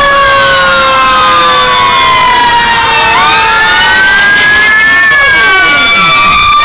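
Several fire-engine sirens wailing at once as a line of fire engines drives past, their slow rising and falling tones overlapping. The sound is loud throughout.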